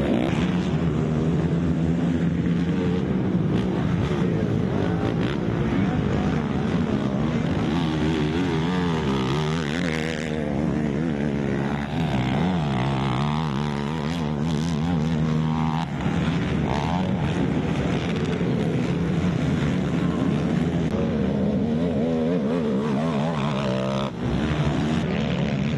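Several racing ATV (quad) engines revving hard, their pitch rising and falling as they accelerate and shift gears around the track.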